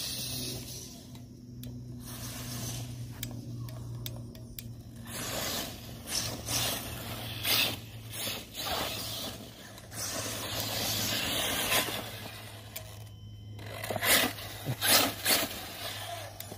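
Arrma Talion RC truck with a brushless motor driving over rough ground: motor and tyre noise rising and falling as it speeds up and slows, with several sharp knocks near the end.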